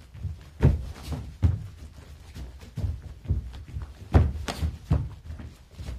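A karateka's feet thudding on a mat in a string of irregular dull thumps as he steps in and throws a front-leg kick (kizami-geri), loudest near the start and about four seconds in.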